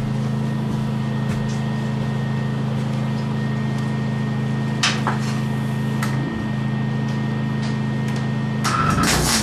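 Steady electrical hum of a welder, with a few clicks about five seconds in. Near the end a louder crackling buzz starts: a MIG welder's arc struck before the shielding gas was turned on.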